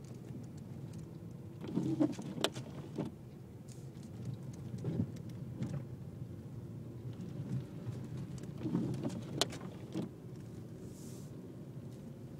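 Volkswagen Jetta driving slowly through deep snow: a steady low hum of engine and road noise, with scattered thumps and knocks, clustered about two seconds in and again near nine seconds.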